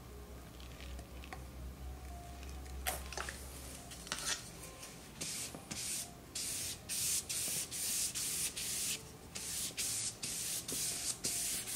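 Trigger misting bottle sprayed again and again over a print coated with GAC 100 acrylic medium, misting it so the medium self-levels. A quick hiss about twice a second, starting about five seconds in, after a few faint clicks.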